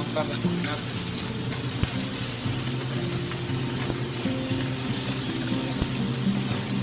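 Clams, squid, mussels and chopped vegetables sizzling as they fry in a wide paella pan, stirred with a wooden spatula. Background music plays throughout.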